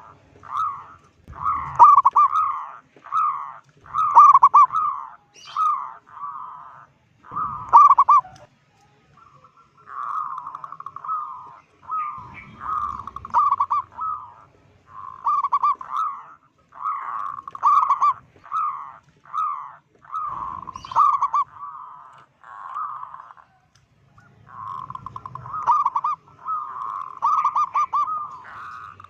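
Zebra dove (perkutut) cooing: a long run of short, rolling, trilled coos, one after another with only brief pauses.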